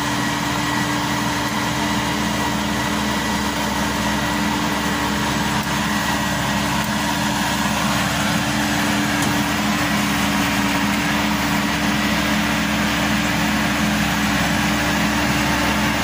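Maxxi Bimo 102 combine harvester's diesel engine running steadily, a constant hum with a thin high whine over it.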